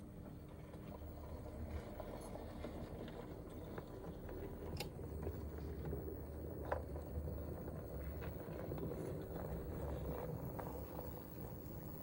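OO gauge model steam locomotive running along the track toward the listener: a low motor and wheel rumble with scattered small clicks from the rails, growing louder as it approaches.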